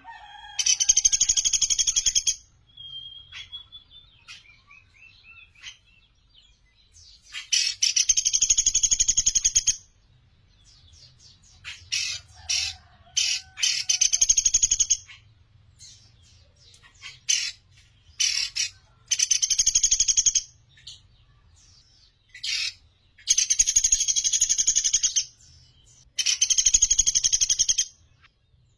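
Sunda pygmy woodpecker (pelatuk beras) calling repeatedly. It gives about six dry, fast rattling trills of one to two and a half seconds each, with short sharp single notes between them.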